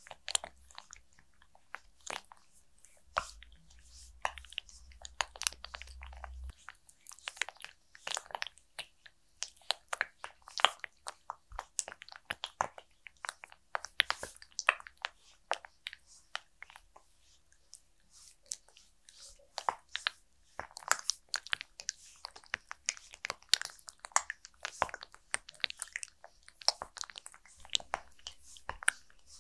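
Slick, lubricated hands massaging a mannequin head's face, making a stream of irregular wet, sticky clicks and squelches as the palms and fingers press, slide and lift off.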